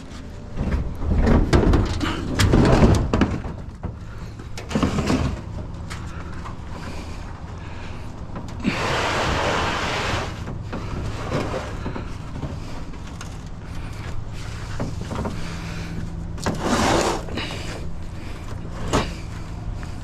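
A heavy appliance being wrestled upright and shoved into place: several loud bangs and thumps in the first few seconds, a long scrape of it sliding across a surface around the middle, and more knocks near the end, over a steady low hum.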